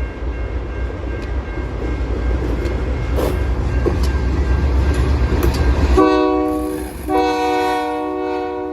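A train rolling past with a heavy low rumble and some clicks from the wheels. About six seconds in, the rumble stops abruptly and a locomotive air horn blows, first a short blast and then a longer one.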